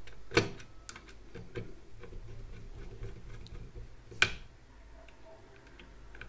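Small clicks and ticks of fingers working wires loose from the terminal board inside an opened rotary-dial telephone, with a sharp click about half a second in and a louder one about four seconds in.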